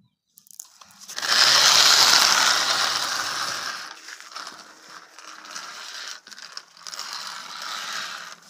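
Plastic toy tractor pushed along a concrete floor, its hard plastic wheels rattling and grinding. The sound is loudest about a second in and then carries on more unevenly.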